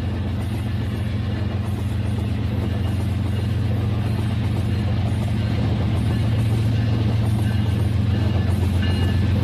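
Battery-powered Rail King toy train running on plastic track: its small motor hums steadily under a fast rattle of wheels, growing louder as it comes closer.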